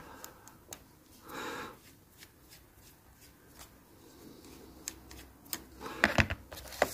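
Faint clicks and scrapes of a small screwdriver working a screw in the chassis of a OO gauge Hornby model locomotive, with a cluster of louder clicks and knocks from handling near the end.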